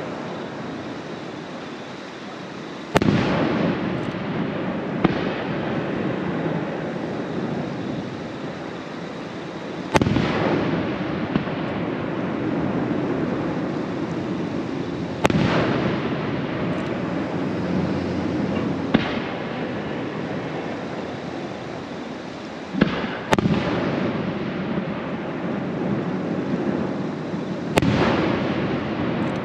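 Aerial fireworks shells bursting: about eight sharp bangs a few seconds apart, each followed by a long crackling, rumbling tail.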